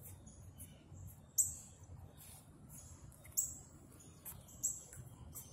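Birds chirping: short, high-pitched chirps every second or so, a few standing out louder than the rest.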